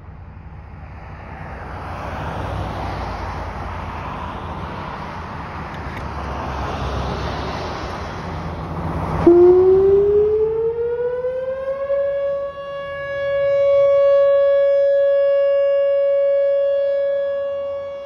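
A Whelen WPS-4004 electronic outdoor warning siren starts up suddenly about nine seconds in. Its tone slides up over about three seconds and then holds steady, growing louder and fading as the rotating horn array turns. Before it starts there is a broad rushing noise.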